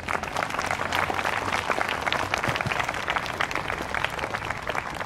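Crowd applauding: many people clapping at once, starting suddenly and thinning a little near the end.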